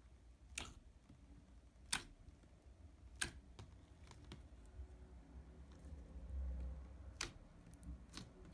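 Five faint, sharp clicks spaced irregularly a second or several seconds apart, with a faint low rumble about six seconds in.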